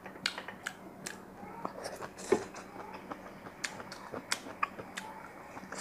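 Close-miked eating sounds: a person chewing boiled cabbage, with a scatter of short wet mouth clicks and smacks and one louder smack a little past halfway.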